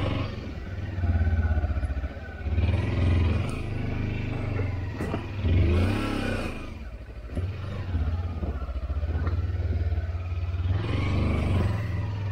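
Kawasaki Versys X300's parallel-twin engine running at low revs, its note swelling and dropping with repeated throttle blips as the motorcycle creeps over landslide rubble. A few sharp knocks come from the bike on the rocks.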